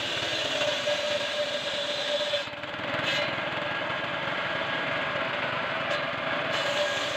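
Small stationary engine running steadily, driving a homemade circular-saw table as a wooden plank is pushed through the blade. A steady whine runs under the engine noise, with a brief dip about two and a half seconds in.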